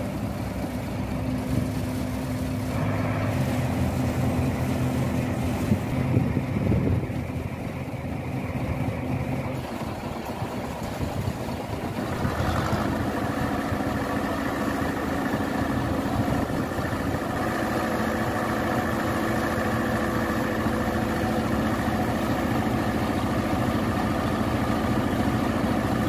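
Diesel engines of a truck-mounted crane and a concrete mixer truck running steadily, with the engine note changing about halfway through.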